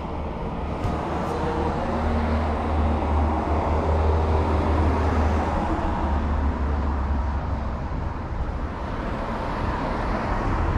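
Road traffic passing close by: engines and tyres with a low rumble, loudest about four seconds in.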